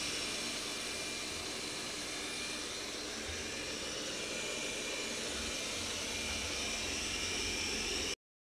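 Roborock S6 MaxV robot vacuum running at its 2500 Pa suction setting: a steady whirring fan noise with a thin high whine over it. It cuts off suddenly near the end.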